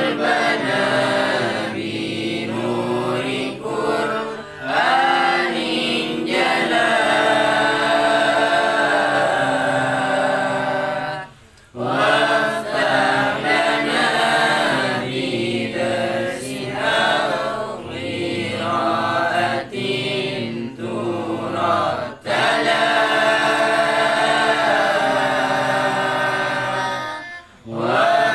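A man chanting solo into a microphone in a slow melodic line of long held, ornamented notes, pausing for breath about eleven seconds in and again near the end.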